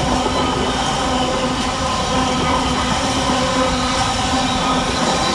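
Freightliner container freight train passing, its loaded container flat wagons rolling by: a steady rumble of steel wheels on the rails, with a few held ringing tones.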